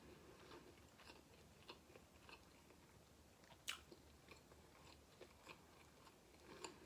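A person chewing food, faint, with soft scattered mouth clicks and one sharper click a little past the middle.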